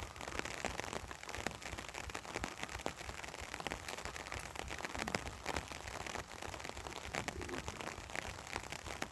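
A fire crackling steadily, a dense run of small sharp pops and clicks.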